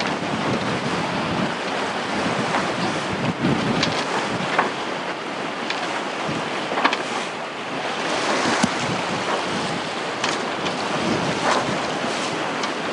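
Wind buffeting the microphone over a choppy sea rushing past a sailing catamaran, with short sharp splashes now and then.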